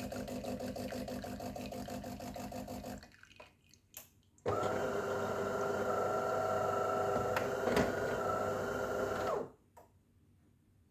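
Coffee machine running through its cycle. A fast, even pulsing sound stops about three seconds in. A couple of clicks follow, then a louder, steady, pitched motor sound runs for about five seconds and cuts off suddenly.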